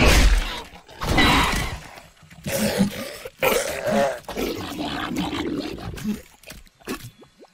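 Cartoon sound effect of an infected Parasaurolophus: a string of harsh, roaring growls and grunts, about five in a row, each lasting up to a second or so, then trailing off into a few short fragments near the end.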